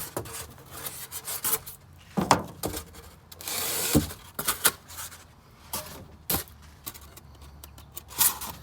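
Serrated kitchen knife sawing through a sheet of half-inch styrofoam in irregular strokes, with one longer stroke about three seconds in.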